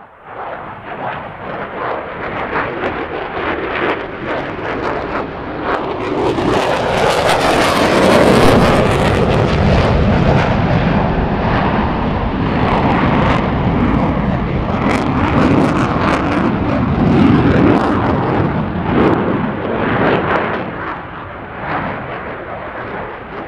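Fighter jet making a low overhead pass on full afterburner: a rough, crackling roar that builds over the first several seconds, stays loudest through the middle, and eases a little near the end.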